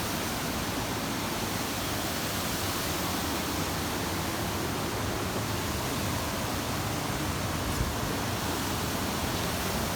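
Creek waterfall: a steady, unbroken rush of falling water.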